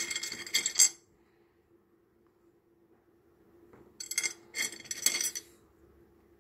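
Pieces of rough opal clinking and clattering against each other and the dish as a hand rummages through the pile, in two short bursts: one at the start and another about four seconds in.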